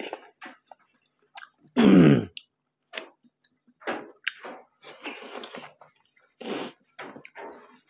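Close-up eating sounds of people chewing and smacking their lips, in short irregular bursts. About two seconds in comes one loud, short vocal sound that falls in pitch.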